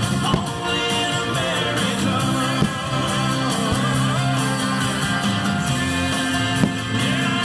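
Country-rock music with guitar and some singing, broken by sharp bangs of fireworks going off, about half a second, two and a half and six and a half seconds in.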